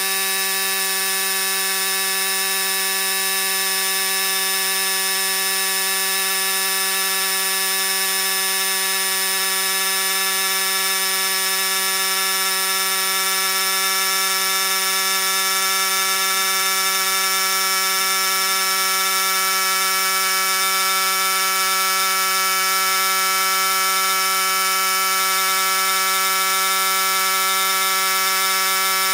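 Vaclife VL738 portable tire inflator running steadily as it pumps up a car tire, a constant even buzzing drone. It gets slightly louder toward the end as the pressure climbs.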